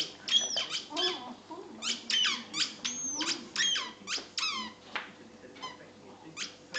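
Patterdale terrier whining and squealing in a rapid, irregular string of high-pitched cries, many sliding down in pitch and a few held longer: a dog desperate for a ball that another dog is holding.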